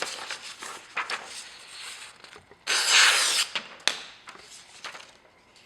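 Freshly sharpened santoku knife slicing through a sheet of paper as a sharpness test, with paper rustling and short clicks, and one longer, louder slice about three seconds in.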